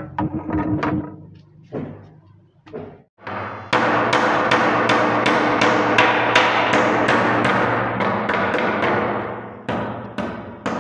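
Claw hammer striking a nail into a wooden plank: a few scattered knocks, then a fast run of about three blows a second from about four seconds in, thinning to a few separate blows near the end. Background music plays underneath.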